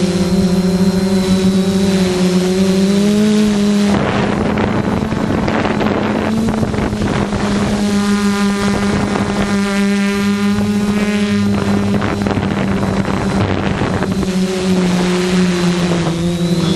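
ZionEX460 multicopter's motors and propellers humming steadily, the pitch shifting slightly as they work against strong wind. Wind buffets the microphone from about four seconds in until about fourteen seconds in.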